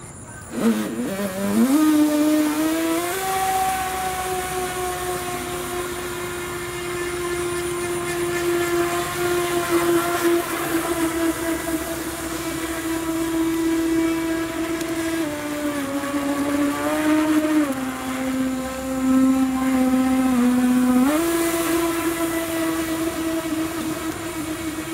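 Electric motor and water-jet drive of a toy-grade NQD RC jet ski converted to jet propulsion, whining steadily at speed. The whine starts suddenly about half a second in and climbs quickly. Its pitch dips for a few seconds in the last third, then jumps back up.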